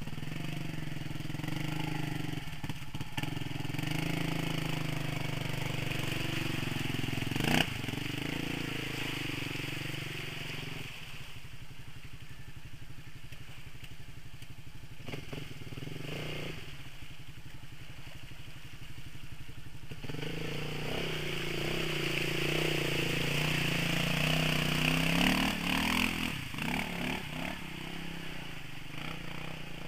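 Quad bike (ATV) engine running and revving as it pushes through deep mud and water, its pitch rising and falling under throttle. There is a single sharp knock about a quarter of the way in.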